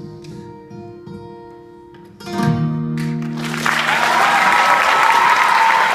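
Acoustic guitar playing the song's closing notes, with a final chord strummed about two seconds in and left ringing; audience applause breaks out a second later and grows loud.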